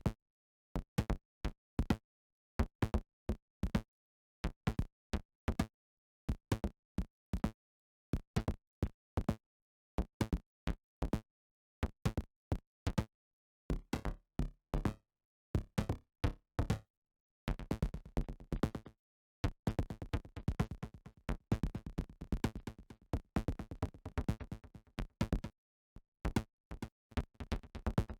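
Synthesized percussion hits from the Surge software synthesizer: short, sharp electronic drum strikes in a repeating pattern, with dead silence between them. About two-thirds of the way in the pattern turns much denser, the hits running into one another.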